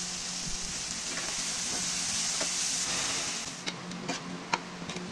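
Sliced onions and vegetables sizzling loudly in a hot frying pan. The sizzle dies down about three and a half seconds in, followed by a few sharp clicks of stirring against the pan.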